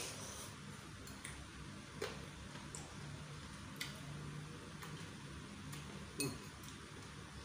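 A metal spoon ticking now and then against a ceramic noodle bowl: a few separate light clinks, the loudest about six seconds in, over a faint low steady hum.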